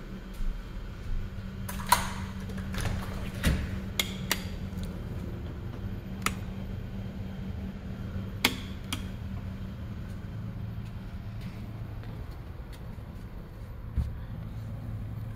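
A steady low hum under scattered sharp clicks and knocks, the loudest about two seconds in and again about eight and a half seconds in.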